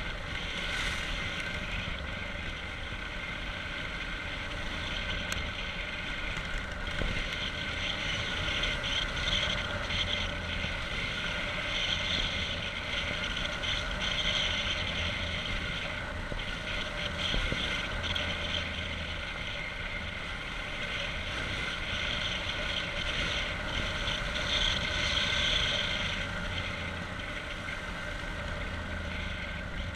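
Yamaha XT660's single-cylinder four-stroke engine running steadily as the motorcycle rides along a dirt track, with wind buffeting the microphone.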